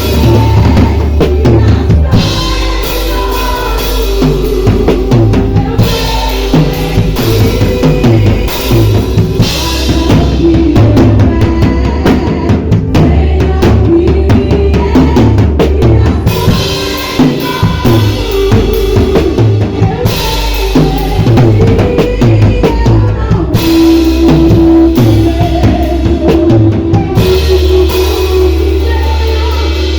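Drum kit played with bass drum, snare and rimshots along with a loud backing music track.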